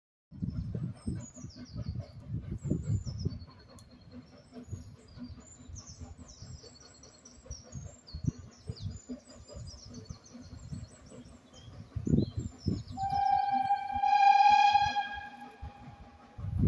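Birds singing over a low, uneven rumble; about thirteen seconds in, an approaching steam locomotive sounds one long single-note whistle of about three seconds, the loudest sound here.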